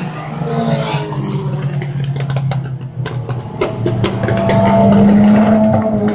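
Race car engines running as cars pass on a short oval track, the engine pitch sliding up and down with throttle. A run of sharp cracks sounds in the middle, and a car's engine grows louder near the end as it comes by close.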